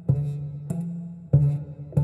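Instrumental background music, with a new note struck about every two-thirds of a second, each fading before the next.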